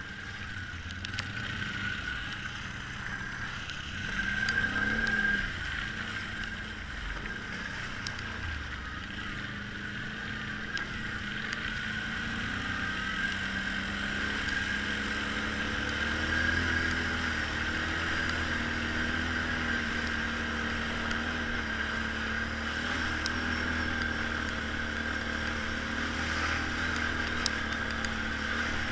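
ATV engine running as the quad rides a rough dirt trail, revving up briefly about four seconds in and then pulling at a steady speed.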